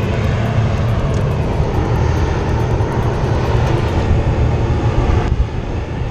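Wind buffeting an action camera's microphone: a steady low rumble with a hiss over it, the hiss easing off about five seconds in.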